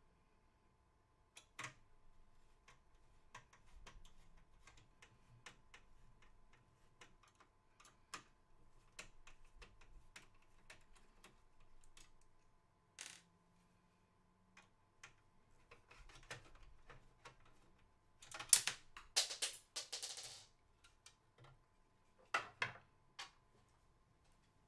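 Screwdriver backing screws out of a case fan mounted in a metal PC case frame: scattered small clicks and ticks of the screwdriver tip and screws. About eighteen seconds in comes a louder rattling scrape, and another shorter one near the end, as the freed fan is handled against the case.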